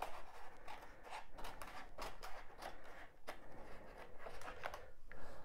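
Scissors snipping through a sheet of drawing paper in a quick run of short, irregular cuts, with the paper rustling as it is turned.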